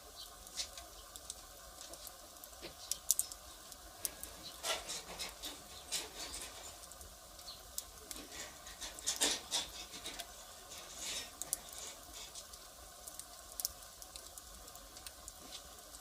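Firewood fire crackling: irregular pops and snaps, with a few busier flurries of crackles.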